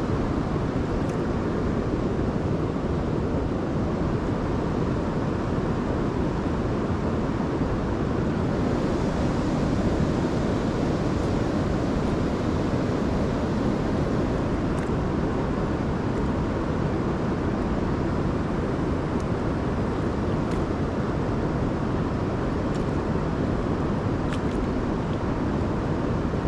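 Steady rushing of river current, an even wash of water noise with no change in level.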